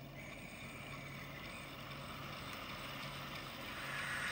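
Model railway locomotive running on a rolling road: a low electric motor hum under a hiss that grows steadily louder.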